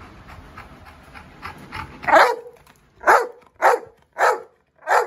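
Black Labrador-type dog barking: quieter short sounds build up for about two seconds, then five loud barks come about half a second apart.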